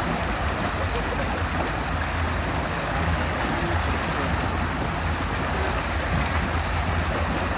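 Motorboat running steadily at towing speed: a low engine drone under the steady rush of water churned past the hull.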